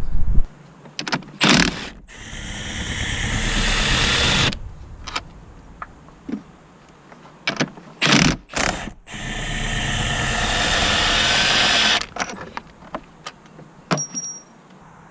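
A cordless power tool runs twice for about two and a half seconds each time, its noise building as it goes, as it undoes fasteners on a car. Between the runs come sharp metallic clicks and knocks from handling tools and parts.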